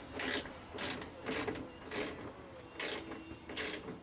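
Ratcheting torque wrench clicking through about six short strokes, a quick rasp of the pawl on each back-swing, while snugging fasteners to a low 5 N·m torque.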